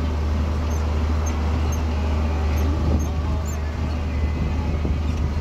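A John Deere tractor's engine running steadily under load, a constant low drone heard from inside the cab as it pulls a sprayer across a field.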